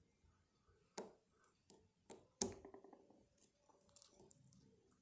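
Sparse clicks and light metallic ticks of lock picks working the pins of a small motorbike disc lock, with a sharper click about two and a half seconds in followed by a brief rattle of small ticks.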